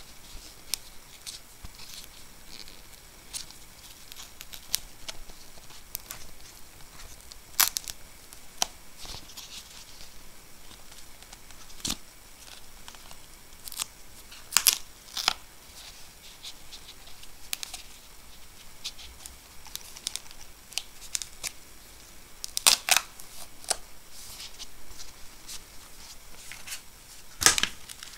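Phone-case packaging being handled: a paper leaflet and plastic tray rustling and scraping, with scattered crinkles and sharp clicks, the loudest a handful of crackles spread through.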